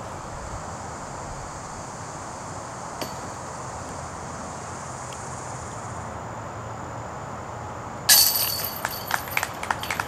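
Steady outdoor background, then about eight seconds in a putted disc strikes the hanging chains of a metal disc golf basket with a sudden loud metallic clash. The chains keep jingling and clinking afterwards.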